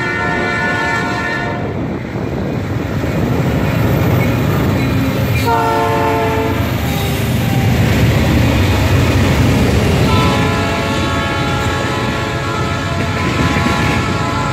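Freight train passing close: diesel locomotives rumbling by and wheels clattering on the rails. The horn sounds at the start and again about five and a half seconds in, its pitch dropping as the locomotives go past. Steady tones sound again from about ten seconds in as the freight cars roll by.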